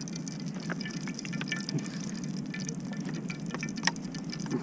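Cooking oil poured from a plastic bottle into a frying pan, trickling, with scattered small clicks over a steady low background rumble.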